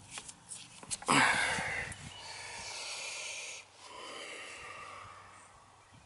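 Refrigerant hissing out of a heat pump's service valve ports as the manifold gauge hoses are unscrewed, after a few small clicks of the fittings: a sharp hiss about a second in that fades, a steadier hiss that stops suddenly, then a softer one fading away near the end.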